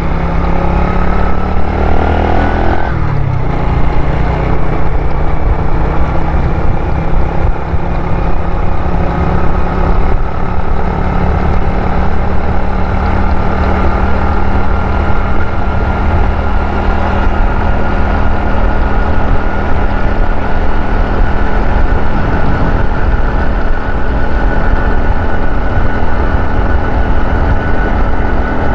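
Motorcycle engine accelerating, its pitch rising for about three seconds, dropping at a gear change, then running steadily at cruising speed with the pitch creeping slowly upward.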